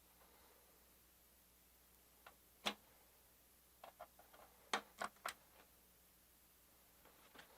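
A few scattered sharp clicks and taps over near silence: a single click about two and a half seconds in, a few light ticks around four seconds, then a quick run of three clicks about five seconds in.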